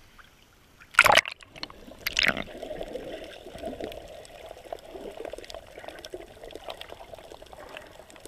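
Two loud splashes about a second apart as the camera plunges into the sea, then the muffled, steady underwater wash of seawater with small bubbly crackles, heard from under the surface.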